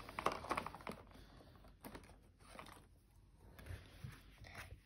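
Faint clicks, taps and rustles of paper and small craft things being handled on a tabletop, a quick run of them in the first second and scattered single ones after.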